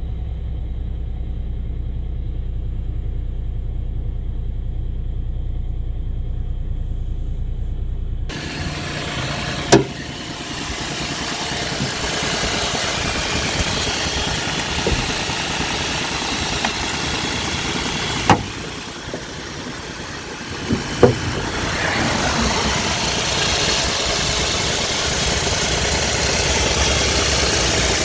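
Kia Ray's three-cylinder engine running cold in winter with an unusually loud abnormal noise, a sign of a tired high-mileage engine that quiets once warmed up. It starts as a steady low hum, then about eight seconds in turns abruptly louder and brighter, with a few sharp clicks.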